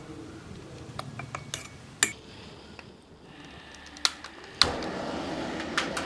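Sharp clicks of a hand-held gas lighter at a gas stove burner, then about four and a half seconds in the burner catches and its flame burns with a steady rushing roar.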